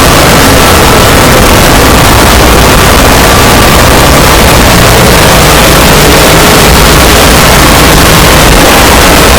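Very loud, steady noise with a deep rumble, unchanging throughout.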